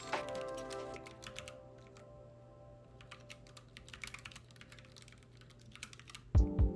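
Computer keyboard typing, a run of quick key clicks, over soft background music. The music's heavy bass beat comes back in near the end and is the loudest thing.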